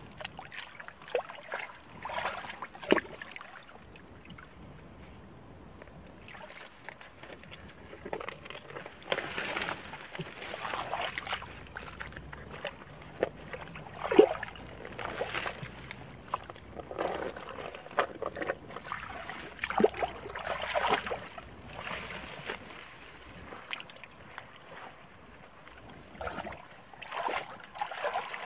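Hands digging and groping through wet mud and shallow water among water hyacinth: irregular sloshing and squelching, with a few sharp snaps and knocks.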